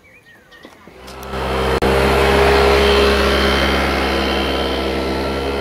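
Keeway Hurricane two-stroke 50cc scooter engine running under way as the scooter rides off. Its steady buzz is loudest a second or so after it comes in and then slowly fades with distance. This is a test ride after a carburettor adjustment; by the rider's word the engine runs but not yet ideally.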